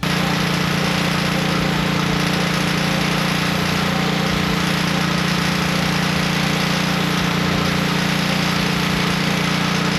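Pressure washer running steadily, its motor humming under the hiss of the water spray as grease is blasted off the tractor.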